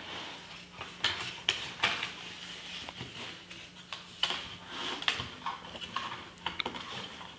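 Light clicks and metallic clinks from chrome sockets and tools being handled in their hard plastic case, in scattered irregular taps.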